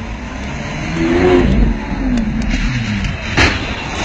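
Sports car engine revving hard as it accelerates past, its pitch rising and then falling away, followed by a few light ticks and one sharp crack near the end.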